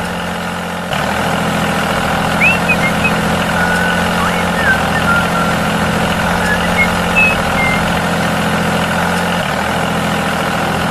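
Steady engine-like drone of the model tractor, getting a little louder about a second in, with a few short bird chirps over it.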